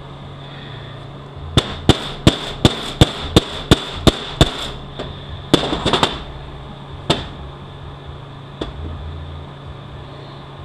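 Hammer striking metal while working a tight-fitting transmission bushing: a quick run of about nine sharp taps, roughly three a second, then a few scattered taps.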